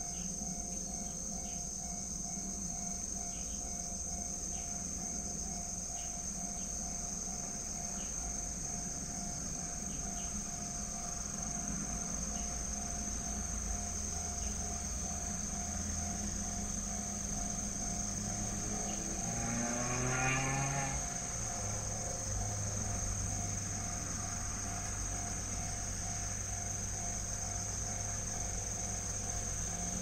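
Japanese level-crossing warning alarm ringing steadily while insects chirp. About twenty seconds in, a whine sweeps upward in pitch over a couple of seconds.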